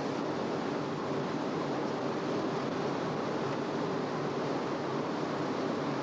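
Steady rushing noise of wind and water, with a faint steady hum underneath.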